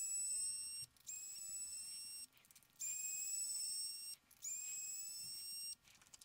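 Small electric precision screwdriver's motor whining in four separate runs of about a second each, each starting with a short rise in pitch, as it backs out the smartwatch case's four small M2 hex screws.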